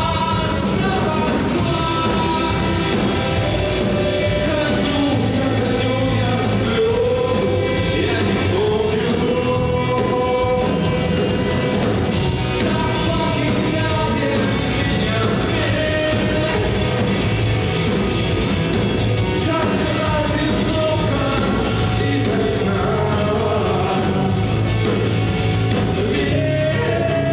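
Rock band playing, with a man singing lead over electric guitars, bass guitar, drums and keyboard.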